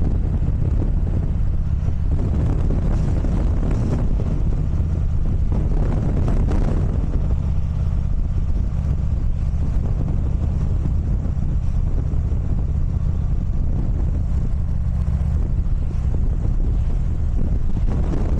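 Steady low rumble of a ferry's engines, with wind buffeting the microphone.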